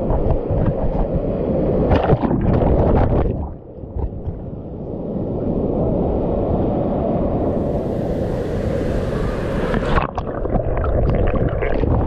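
Ocean surf breaking and washing around a camera held at water level: rushing, splashing water, steadier in the middle, with a fresh burst of splashing about ten seconds in as a breaking wave reaches the camera.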